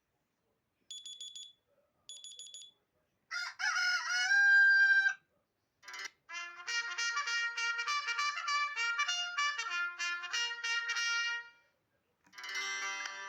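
Honor 6A smartphone alarm tones played one after another: two short buzzy beeps, then a rooster-crow alarm, then a short melody of clear electronic notes that stops, and another tune starting near the end.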